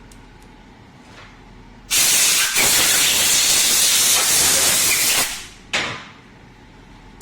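A loud, steady hiss of pressurised gas or spray, lasting about three and a half seconds, then a short second burst about half a second later.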